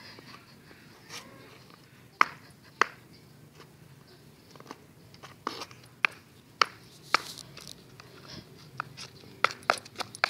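Oversized women's high-heeled shoes clacking on concrete under a toddler's unsteady steps: sharp heel clicks at an uneven pace, sparse at first and coming faster near the end.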